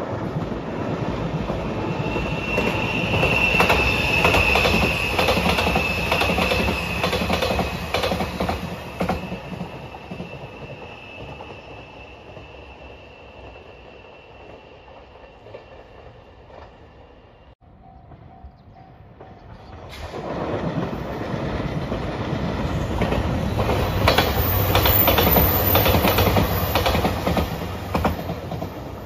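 A JR Shikoku 8600 series electric limited express passing close by, wheels clattering over rail joints with a steady high tone above them, fading as it moves away. After a short break, a second train passes, its wheel clatter building up again about two-thirds of the way through.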